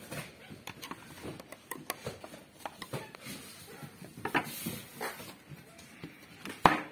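A 3.5-inch hard drive and its plastic drive-tray bracket being handled and fitted together, giving irregular clicks, knocks and the crinkle of an anti-static bag, with one sharp click near the end.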